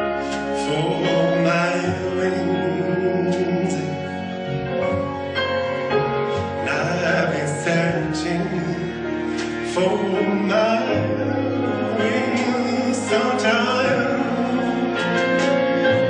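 The routine's music track: a singing voice with a wavering, held melody over sustained instrumental chords.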